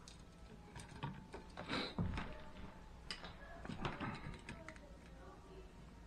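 Small clicks and rattles of a wall light switch and its wires being handled while the wires are fitted to its screw terminals. The clicks come in loose clusters, loudest around two seconds and four seconds in.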